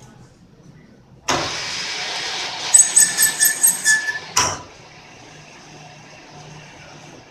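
Lathe starting up suddenly and running with a loud mechanical noise, clattering rhythmically for about a second, then stopping with a sharp knock. A fainter steady machine noise follows. This comes during a thread-repair pass.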